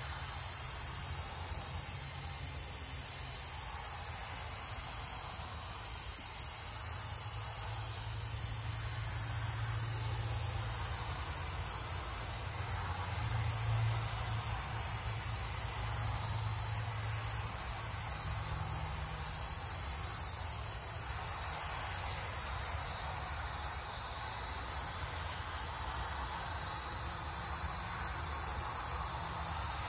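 Spray gun hissing steadily as it lays heavy lines of water-based glue (gilding adhesive), with a low motor hum underneath.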